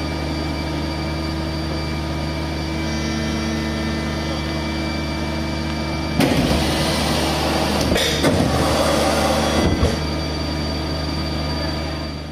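Steady machinery hum with several fixed tones from the hydraulic power driving a Boeing 747-200 body landing gear swing test. About six seconds in, a louder hissing rush with sharp knocks begins and lasts about four seconds as the gear moves.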